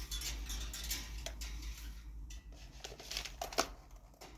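Rustling and light clicks of something being handled, with a sharper click about three and a half seconds in.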